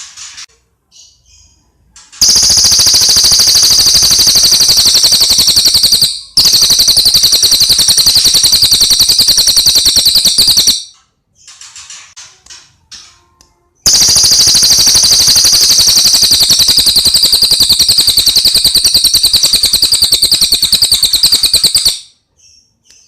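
A cililin songbird singing two long, very fast, loud trills of high notes, each about eight seconds long, the first broken briefly partway through. Softer short chirps come before, between and after the trills.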